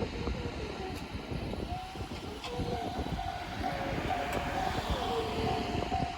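A train running past a railroad crossing with the crossing's warning signal sounding: a steady pitched tone over the rumble of the train, joined about two seconds in by a second, wavering tone.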